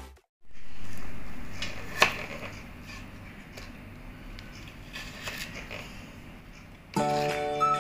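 A kitchen knife slicing sausages on a plastic cutting board, with a few sharp taps of the blade against the board over a steady room hiss. Music starts about a second before the end.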